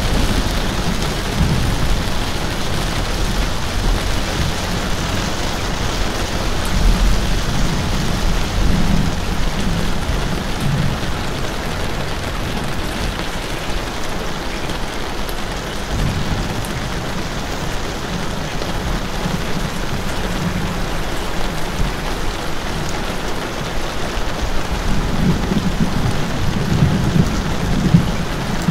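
Steady rain falling, with low rumbles that swell and fade several times, strongest near the start, about a quarter of the way in, and near the end.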